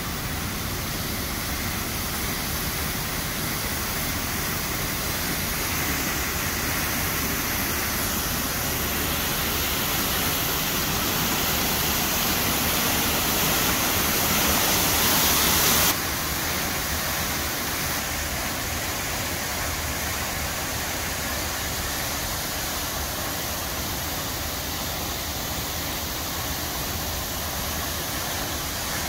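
Architectural waterfall fountain: water pouring off a building's wall and splashing into a shallow pool, a steady rushing noise. It grows louder until about halfway through, then drops off suddenly and carries on steady.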